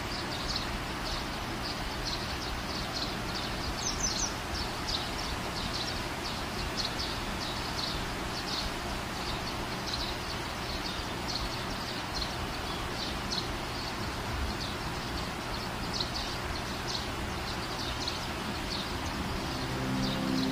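Water rushing steadily over a stepped weir, with short high bird chirps repeating every second or so. Music fades in near the end.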